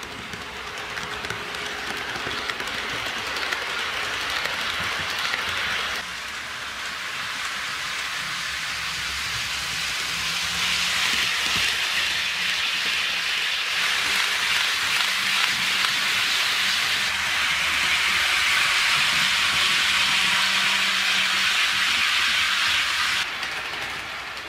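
HO scale model intermodal train, a diesel locomotive pulling loaded container well cars, rolling along sectional track: a steady rushing hiss of the small wheels on the rails over a faint motor hum. The level jumps up or down abruptly several times.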